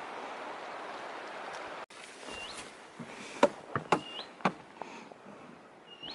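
A steady rushing hiss, cut off abruptly about two seconds in. Then a bird repeats a short call that rises sharply in pitch about every two seconds, with a few sharp clicks or knocks near the middle.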